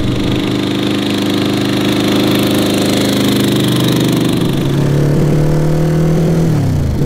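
1981 Honda GL1100 Gold Wing's flat-four engine running under way, not running perfectly. Its pitch climbs gradually as the bike accelerates, then drops sharply near the end as the rider shifts into second gear.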